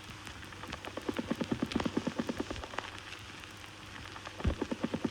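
Opening of a noise track: a fast, uneven pattering of clicks and low pulses, about eight a second, swelling and fading like rain, with one heavy low thump about four and a half seconds in.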